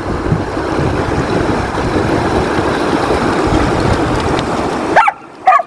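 Steady rushing noise of wind buffeting the microphone, mixed with a shallow river running over stones. It cuts off abruptly about five seconds in and is followed by two short, high calls.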